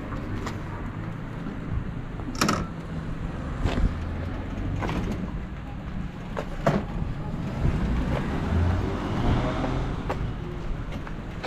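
Honda Super Cub C125's single-cylinder engine running as the bike is ridden, with several sharp knocks standing out over the steady engine sound.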